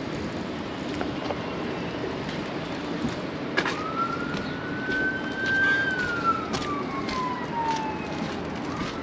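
Emergency vehicle siren wailing in a slow rise and fall, starting a few seconds in and beginning to rise again near the end. Underneath it runs a steady engine hum, with scattered knocks and clanks.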